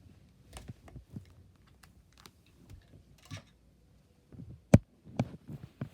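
Handling noises: scattered light clicks and taps, with one sharp knock about three-quarters of the way through and a few more knocks soon after.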